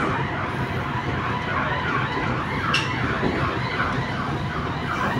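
Electric commuter train running, heard from inside the carriage: a steady rumble under a warbling whine that falls in pitch over and over, about two or three times a second, with one sharp click near the middle.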